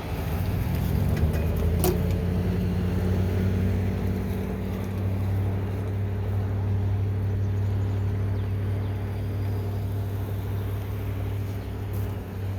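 An engine running close by, rising in pitch over the first couple of seconds and then holding a steady note, with a single sharp click about two seconds in.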